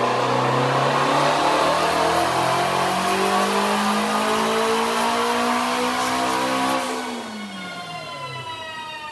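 Twin-turbocharged Shelby GT350R's 5.2-litre flat-plane-crank V8 at wide-open throttle under boost on a chassis dyno, revs climbing steadily for about seven seconds. Then the throttle closes and the revs fall away as the car coasts down on the rollers.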